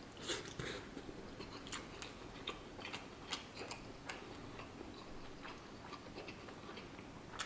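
Quiet eating sounds: a person chewing, with many small irregular clicks and taps scattered through.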